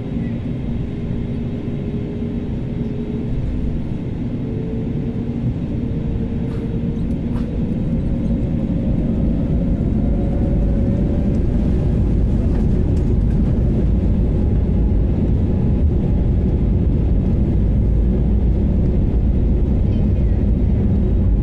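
Airliner jet engines spooling up for the takeoff roll, heard inside the cabin: a steady rumble that grows louder, with an engine tone gliding upward partway through.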